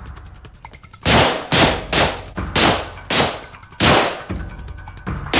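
Seven gunshots in an uneven volley, most about half a second apart with a longer gap before the last one, each ending in a short echoing tail.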